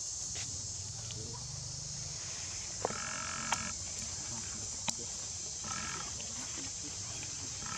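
Forest ambience: a steady high insect drone, with short high animal calls about three seconds in and again near the end, and a few sharp clicks.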